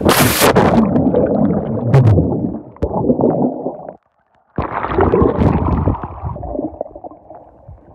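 A person plunging into water with a splash, then the muffled rushing and bubbling of air bubbles heard underwater. The sound drops out for about half a second some four seconds in, then bubbling starts again and fades away.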